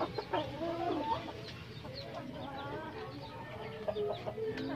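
A Shamo hen clucking repeatedly while her newly hatched chicks cheep in many short, high peeps, as the chicks are lifted from the nest one by one.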